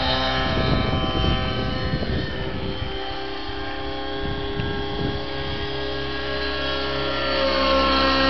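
Align T-Rex 700 radio-controlled helicopter in flight: a steady, high whine from its power plant and rotor. The whine fades a little as the helicopter climbs away, then grows louder again near the end as it comes back closer.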